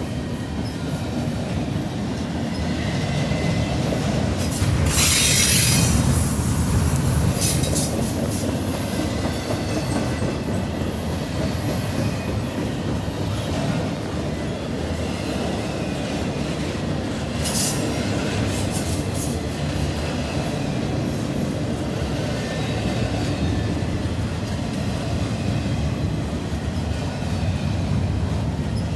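Double-stack intermodal freight train rolling past at close range: a steady rumble of steel wheels on rail, with brief high wheel squeals about five seconds in, the loudest moment, and again briefly around seven and seventeen seconds.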